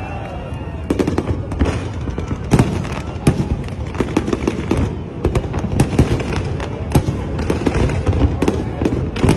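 Aerial fireworks display going off: a rapid, irregular run of sharp bangs and crackles over a continuous low rumble of distant explosions.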